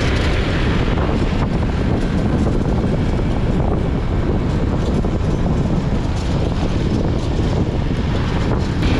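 Wind buffeting the microphone of a moving vehicle, over steady road and engine noise.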